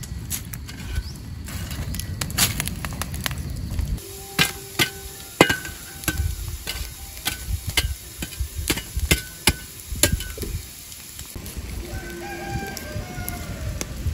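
Wood and bamboo fire crackling, with sharp pops and snaps scattered through and a low rumble in the first few seconds. Chickens call in the background, twice: once about four to six seconds in and again near the end.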